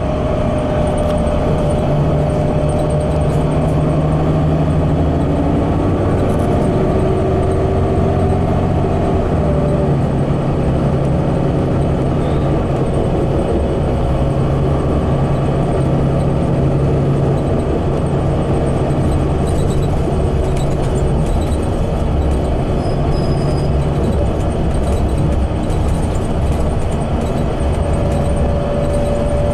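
2016 Gillig BRT bus with a Cummins Westport compressed-natural-gas engine and Allison B400R automatic transmission, heard from inside the cabin running steadily at freeway speed, with engine hum and road rumble. The engine's tone drops a step about ten seconds in.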